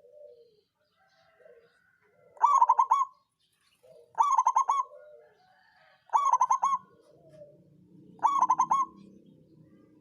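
Zebra dove (perkutut) of the 'songgo ratu' voice type cooing: four calls about two seconds apart, each a quick run of rattling notes, the kind of song used as a lure call to stir other doves into singing. A faint low hum comes in about halfway through.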